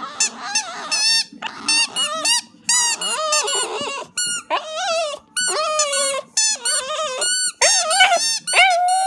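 Rubber chicken squeaker toy squawking over and over as a Border Terrier chews and squeezes it in its mouth. The squawks come as a rapid run of short honks, several each second, some bending up and down in pitch.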